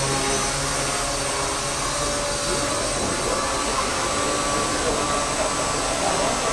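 Gaui Hurricane 200 small electric radio-controlled helicopters in flight: a steady whirring whine of their motors and spinning rotor blades.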